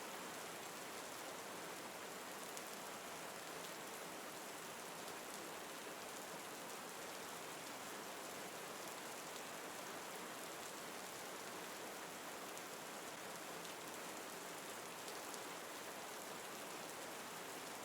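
Steady rain falling, an even patter of many small drops that doesn't change.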